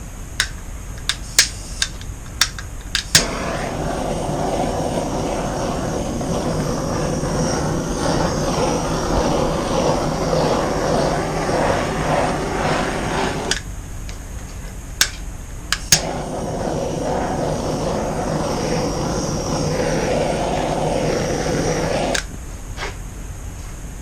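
Electric heat gun blowing steadily over wet acrylic paint, with a low motor hum under the rush of air. It switches on about three seconds in after a few clicks, cuts off for about two seconds midway, then runs again until shortly before the end.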